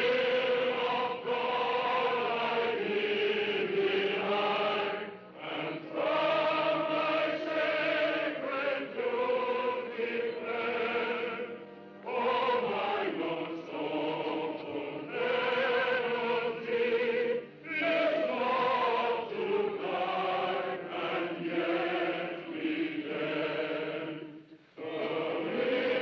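A group of voices singing a slow hymn in long held phrases, with brief breaths between phrases, four times.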